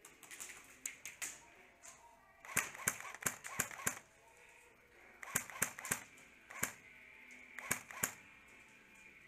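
Airsoft gunfire in the arena: single sharp cracks in short bursts at about four a second, a semi-auto pace, with a cluster of about six shots near the middle and smaller groups before and after.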